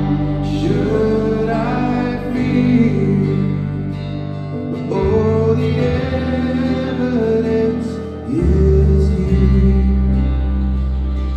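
Live contemporary worship band playing, with guitar and a low bass line and some singing; the bass drops out for a few seconds in the middle, and the full band returns about eight and a half seconds in.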